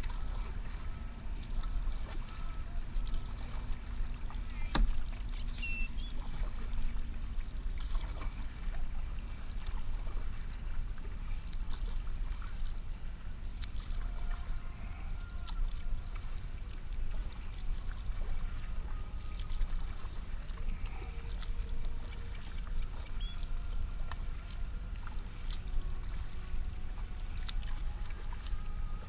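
Kayak under way: paddle strokes and water splashing and lapping against the hull, over a steady low rumble.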